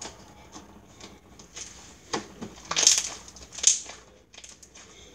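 Slime being kneaded and stretched by hand, a run of short sticky noises, the loudest two about three and three and a half seconds in.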